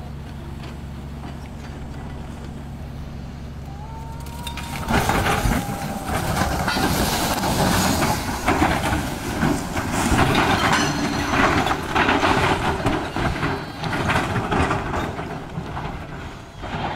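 A heavy vehicle's engine runs steadily. About five seconds in, a much louder rumbling and clattering noise begins, full of knocks and scraping, and goes on until near the end.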